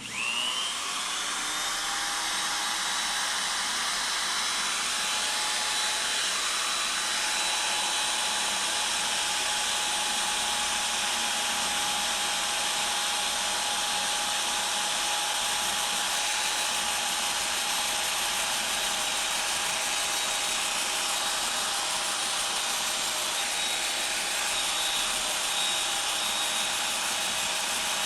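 Power tool spinning a brass wire brush. It spins up with a rising whine right at the start, then runs steadily while the bristles scrub a metal bike part clean.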